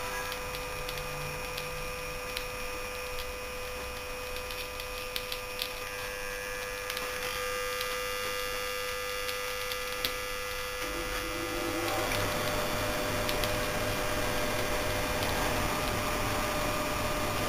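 Bulkon hermetic refrigerant compressor, run without oil after its connecting rod has broken, humming steadily with scattered clicks and ticks as it burns out. About twelve seconds in the hum grows louder and rougher.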